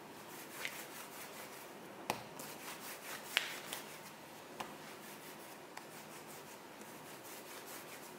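Hands rolling a piece of bread dough into a log on a silicone baking mat: faint, repeated soft rubbing strokes with a few light taps.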